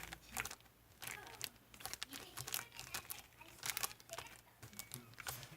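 Marbled slime being pressed and stretched by hand, giving a run of irregular wet clicks and crackling pops.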